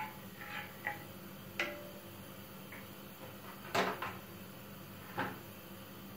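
A few sharp knocks and clicks of a spatula against a cooking pot and being set down, the loudest about halfway through, over a faint steady hum.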